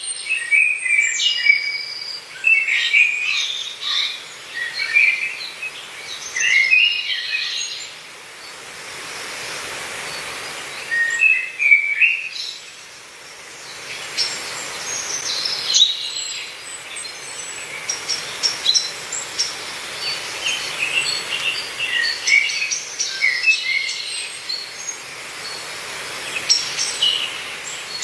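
Several forest birds chirping and singing in short, overlapping phrases, over a soft rushing of breeze through the trees that swells about a third of the way in and again around halfway.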